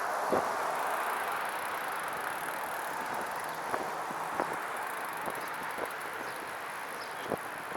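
Catrike 700 recumbent trike rolling along with a steady hiss of tyres and wind, broken by light clicks at irregular intervals: the random rattle from the rear of the trike, its cause not found.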